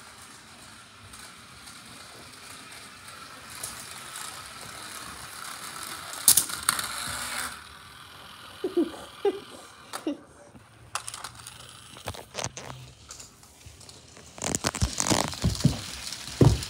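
Small battery-powered toy police car running along a snap-together plastic track, its little motor and gears whirring with a ratcheting rattle. Scattered clicks follow, then a run of sharp knocks near the end.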